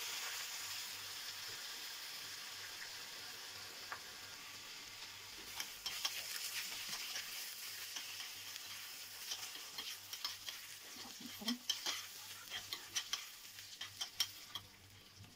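Rice and vermicelli sizzling in hot oil in a small stainless steel pot as they are toasted for pilaf, a steady hiss fading slowly. From about five seconds in, a metal spoon scrapes and clicks against the pot as the rice is stirred.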